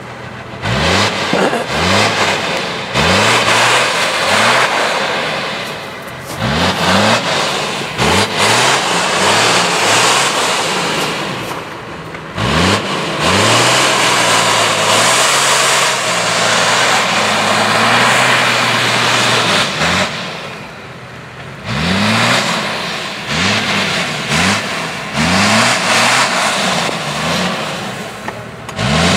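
Toyota Land Cruiser HDJ80's turbo-diesel straight-six revved again and again as the truck claws up through deep snow, over the hiss of its 40-inch mud tyres spinning and throwing snow. The revs come in quick rising bursts, hold high for several seconds in the middle, ease off briefly, then burst again repeatedly near the end.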